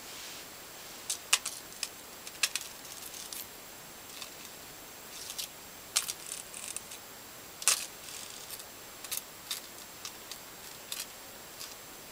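Thin metal chain clinking in short, irregular clicks and little jingles as it is handled and laid onto a picture board.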